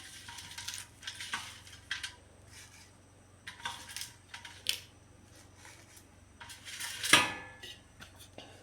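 Scattered light clinks and knocks of kitchen utensils as herb leaves are moved into a mixer-grinder jar, with one louder ringing knock about seven seconds in.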